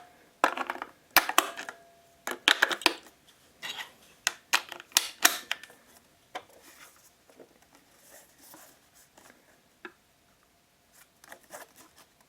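Sharp plastic clicks and small knocks of AA batteries and the battery compartment being handled on a small watch winder, dense for the first six seconds, then sparser.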